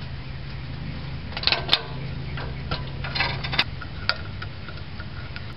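Light metallic clicks and small rattles in two short clusters, about one and a half and three seconds in, from hand work on a disconnected steel brake line as it is capped with a piece of hose and a hose clamp. A low steady hum underneath stops about three and a half seconds in.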